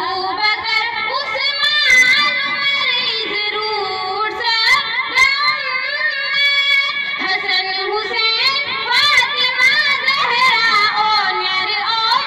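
A girl singing a naat, a devotional poem in praise of the Prophet, solo: one melodic voice with wavering, ornamented lines, pausing briefly for breath about four and seven seconds in.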